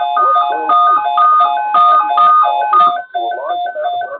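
Electronic beeping melody, short steady tones repeating in a quick pattern of about four notes a second, breaking up after about three seconds.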